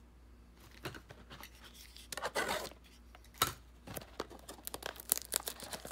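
Trading cards and packaging being handled at close range: light scrapes, rubs and small clicks of card stock and cardboard, with one sharper click about three and a half seconds in, and the handling getting busier near the end.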